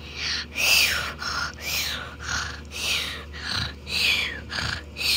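A person's voice making a run of about ten high-pitched, breathy whimpering cries, roughly two a second, each sliding down in pitch.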